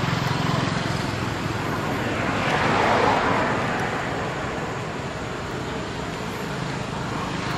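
A road vehicle passing by: a rushing noise that swells to a peak about three seconds in and then fades, over a steady low hum.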